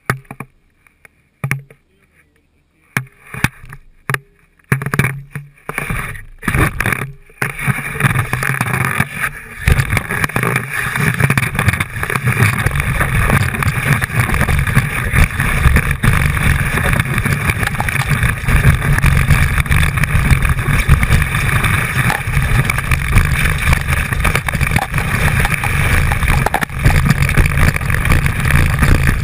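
Skis on snow, heard from a camera mounted at the binding: a few scrapes and knocks in the first seconds, then from about eight seconds in a loud, continuous rush of the skis sliding over snow, with powder spraying over the camera housing.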